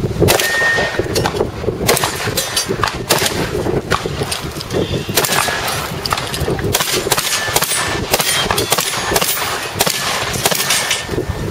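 Shotgun fired repeatedly at steel plate targets, with the plates clanging and briefly ringing when hit.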